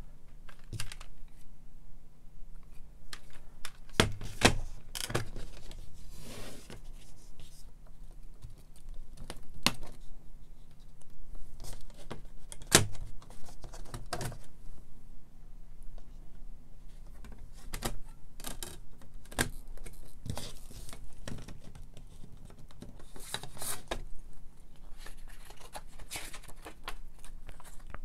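Plastic CD jewel case being handled: scattered sharp clicks and taps as the case is opened and discs are lifted off the hub, with brief paper rustling as the lyric booklet is taken out and opened.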